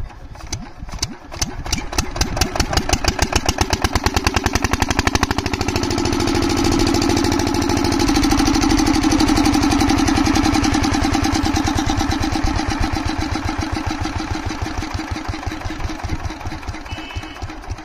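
Single-cylinder diesel water-pump engine firing with slow separate beats that quicken over the first few seconds into a fast steady run, then slows again over the last few seconds. It is running on a freshly cleaned and refitted fuel injector nozzle.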